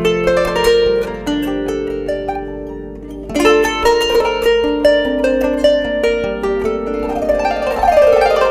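Background music of plucked strings, harp-like, playing a gentle melody; it thins out briefly about a third of the way in, then picks up again.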